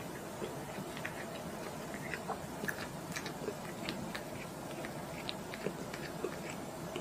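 Cat lapping liquid from a small cup held to its mouth: soft, irregular wet clicks of the tongue and mouth, a few each second, over a steady low hiss.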